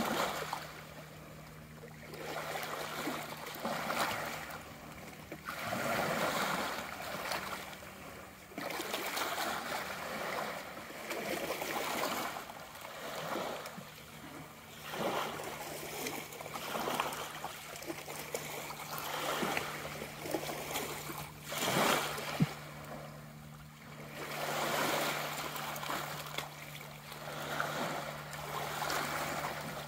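Small waves of calm bay water lapping and washing over rocks and pebbles at the shoreline, swelling and falling every two to three seconds, with one sharp knock about three quarters of the way through.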